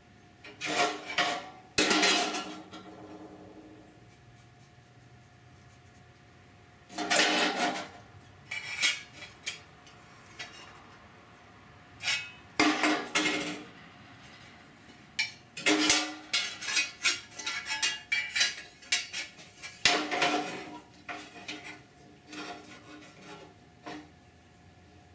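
Sheet-steel patch panel pieces clattering and scraping against the truck's steel core support as they are held up, shifted and test-fitted. The sounds come in irregular bursts with short pauses, busiest in the last third.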